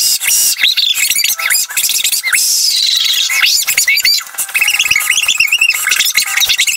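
A boy's furious screaming sped up four times, so it comes out as very high-pitched, squeaky, chipmunk-like shrieking, with sharp clicks of a keyboard being hammered.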